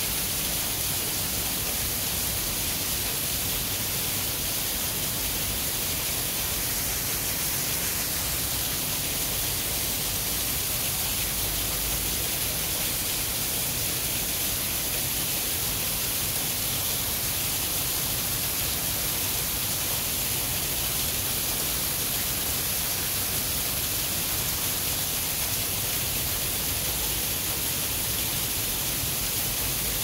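A waterfall pouring steadily down a rock face: an even, unbroken rush of water, bright and hissy.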